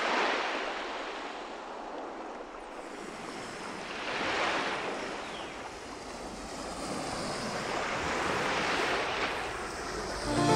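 Small sea waves washing onto a pebbly shore. They swell and ebb three times, about four seconds apart.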